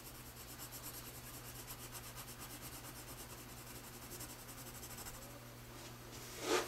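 Graphite pencil hatching on paper: faint, quick, even scratching strokes over a low steady hum. There is a brief louder sound near the end.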